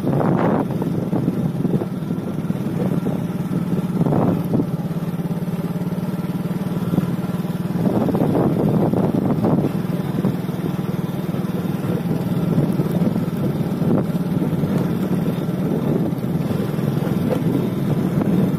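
Small motorcycle engine running at a steady pitch while riding along a dirt track, with a few brief louder surges.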